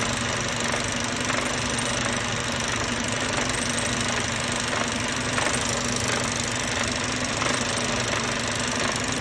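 Mercedes-Benz Euro 5 engine idling steadily, with a faint knock repeating roughly once a second over the running: the abnormal engine noise being traced to its source.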